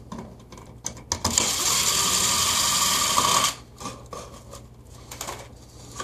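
Cordless drill spinning for about two seconds as it backs out an outlet's long mounting screw, with a few clicks just before it starts. Light clicks and rattles follow as the outlet is handled.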